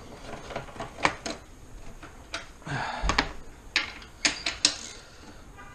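Hand tools being worked on an engine: a socket wrench and extension giving irregular metallic clicks and knocks, with a short scraping clatter about three seconds in.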